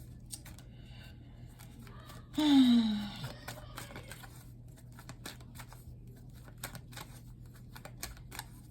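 Tarot cards being handled and shuffled: a run of light clicks and flicks, with a short falling murmur of the reader's voice about two and a half seconds in.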